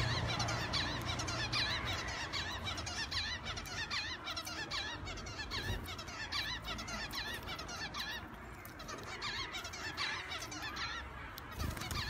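A flock of caged finches calling: many short call notes overlapping in a busy chatter, thinning out near the end.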